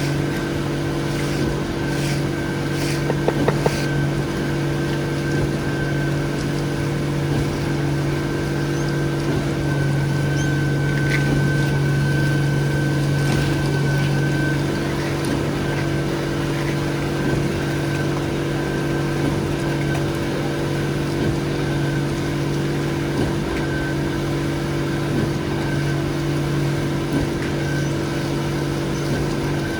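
Heavy diesel engine of the concrete pumping equipment running steadily at a constant speed, with a few sharp clicks about three seconds in.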